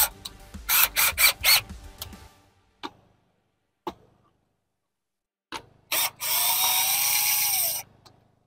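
A cordless drill drives a tapping screw into the armrest's track. There are a few sharp clicks and knocks first, then the drill runs steadily for about a second and a half near the end, its motor pitch dropping as it stops.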